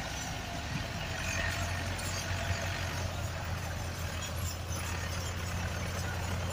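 Diesel tractor engine running steadily under load as it hauls a heavily loaded trolley, a constant low drone.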